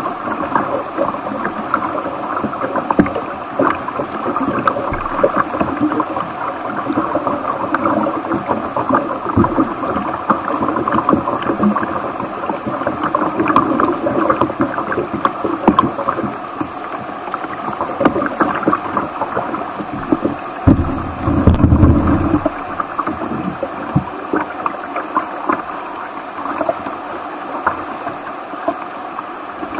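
Small stream rapids rushing and gurgling over rocks in a steady wash of water noise, with a brief low rumble about two-thirds of the way through.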